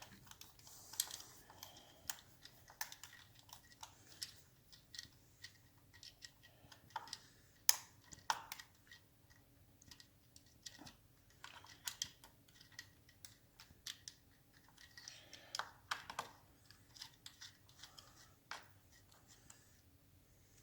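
Light, irregular clicks and taps of hand tools and small screws being fitted and tightened into a Triumph Bonneville's primary cover.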